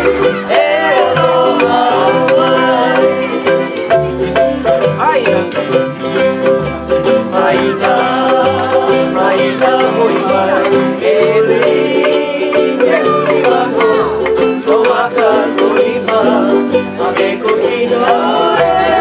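Live Hawaiian band music: strummed and plucked ukuleles and guitar over a plucked upright bass line that changes note every second or so, playing steadily for a hula.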